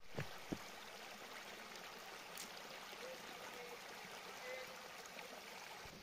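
Shallow stream running over stones, a steady even rush of water, with two brief soft knocks just after it begins.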